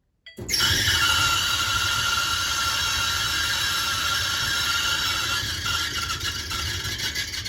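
Whirlpool Duet dryer running with a steady squeak: several high squealing tones held over a low rumble, starting about a third of a second in.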